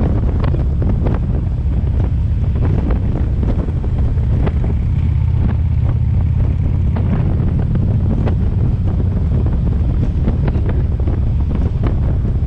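Wind buffeting the microphone over the steady low road rumble of a car driving, with scattered light ticks.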